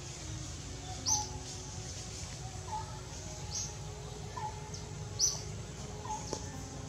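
Birds chirping: short, sharp high chirps every second or two, with lower curling call notes between them.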